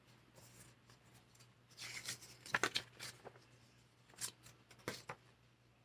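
Faint rustling and handling of paper perfume samples: a cluster of short rustles and clicks about two to three seconds in, then two more brief ones a little later.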